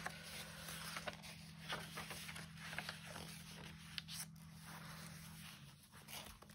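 Faint rustling and brushing of paper pages being turned and handled by hand, with small slides and taps of fingers on paper and fabric. A low steady hum sits underneath and stops about five and a half seconds in.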